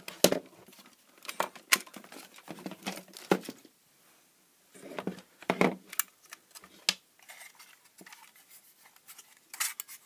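Handling clatter: a mains plug pulled from a plug-in power meter, then the small aluminium case of an LED ripple projector picked up, unplugged and turned over in the hands, giving scattered clicks and knocks. The loudest knocks come about five to six seconds in.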